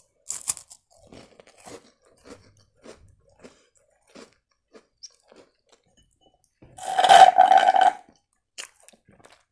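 A crunchy sandwich cookie with a chocolate filling is bitten into and chewed, with soft chewing clicks. Near the end comes the loudest sound, a slurp of about a second as the last of the chocolate milk is sucked up through a straw from an almost empty glass.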